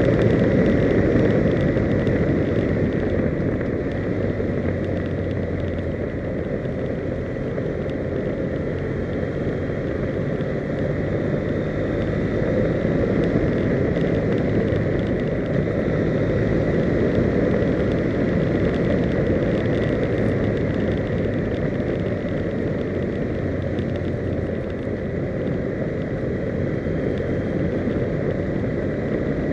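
Steady rush of wind and road noise from a moving vehicle, picked up by a camera riding on it, with a low drone underneath and a faint steady whine.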